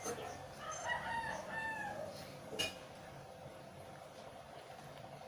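A rooster crowing once, a single call of about a second and a half, followed by a short click.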